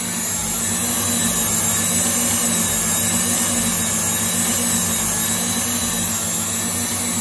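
KitchenAid stand mixer running steadily, its wire whisk beating Italian meringue in a stainless steel bowl: an even motor hum with whirring. The meringue is being whipped until it cools to room temperature and turns firm and glossy.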